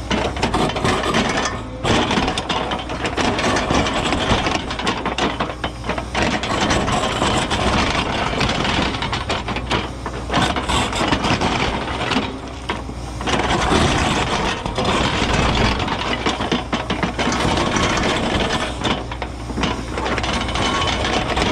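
Cat 314E excavator's diesel engine working hard under load while its ripper tooth tears through hard bluestone, with rock cracking, scraping and clattering over the steady engine. The noise eases briefly a few times as the ripper lifts or repositions.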